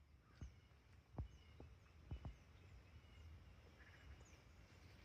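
Near silence, with a few faint soft knocks and faint short high chirps.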